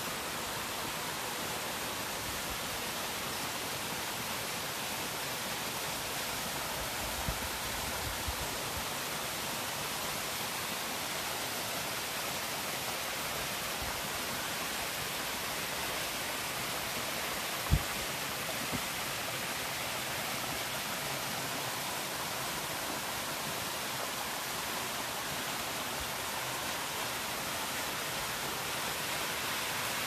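Waterfall cascading over rock into a shallow pool: a steady, even rush of falling and splashing water. A few brief low thumps break through, the sharpest about 18 seconds in.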